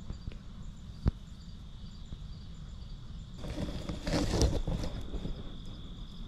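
Insects chirring steadily at dusk, with faint regular chirps pulsing above the drone. About a second in there is a single sharp click. From about three and a half to five seconds a louder burst of rustling and handling noise comes as the camera is moved through brush.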